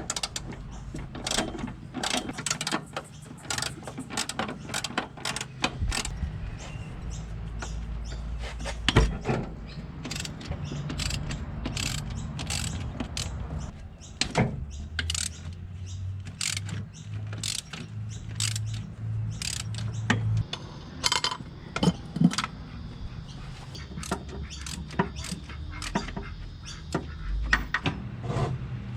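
Ratchet wrench clicking and metal tools clanking in irregular bursts as engine mount bolts are undone, over a low steady hum.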